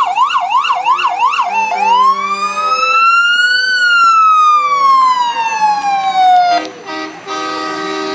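Fire engine siren switching from a fast yelp, about three sweeps a second, to a slow wail that rises and then falls away. Near the end the truck's horn sounds twice in a steady blast.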